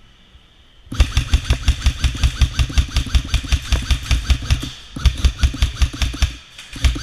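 Airsoft electric guns firing on full auto: a rapid, even rattle of shots, about a dozen a second, starting about a second in. There is a long burst of about four seconds, then a shorter one, then another beginning near the end.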